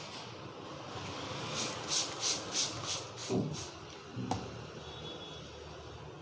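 Hands rubbing briskly over hair and scalp in a head massage: about seven quick hissing strokes in a row, then a couple of soft dull thumps.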